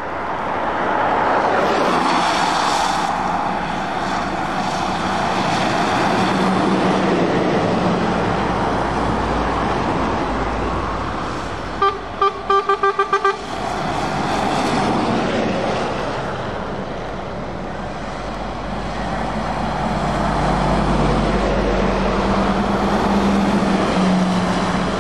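Heavy trucks passing one after another on a wet road: tyre hiss and diesel engine drone swelling and fading as each goes by. About halfway through, a truck horn gives a quick run of about seven short toots.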